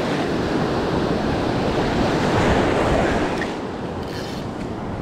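Ocean surf breaking and washing up the beach, with wind buffeting the microphone in low gusts. It eases slightly after about three seconds.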